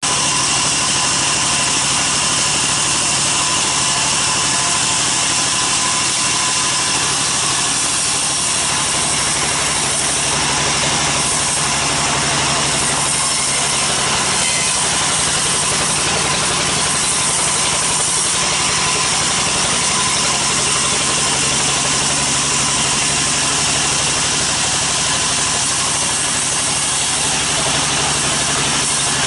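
Large sawmill band saw running steadily as its blade cuts lengthwise through a teak log, a loud unbroken machine din with a steady hum and whine.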